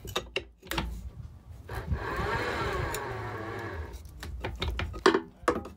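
Simpson Lawrence Horizon 1500 anchor windlass worked by hand with its lever, 8mm galvanized chain feeding over the gypsy. A few sharp clicks and knocks, then a couple of seconds of steady grinding, then more clicks near the end. The chain is biting well in the gypsy.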